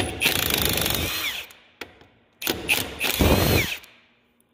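Impact wrench hammering in two bursts of about a second each, a whining, rattling run on each bolt as the two bolts holding a corn head's gathering-chain idler arm are spun out.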